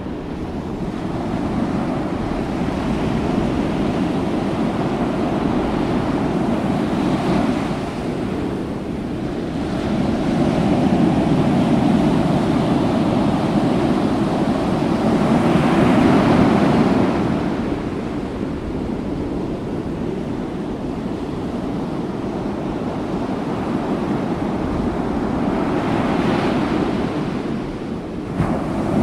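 Ocean surf: waves washing onto a beach in slow surges that swell and fall back, loudest in a long swell in the middle and again near the end.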